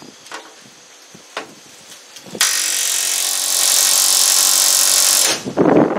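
A handheld power tool runs steadily for about three seconds, starting and stopping abruptly, with a few light clicks and knocks before it.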